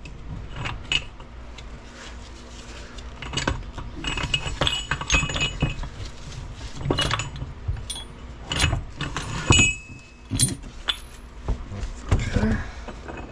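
Steel gears, shaft and shift parts of an NP205 transfer case clinking and knocking against each other as the front shaft is worked out of the case: a string of irregular metallic clinks and taps, some with a brief ring.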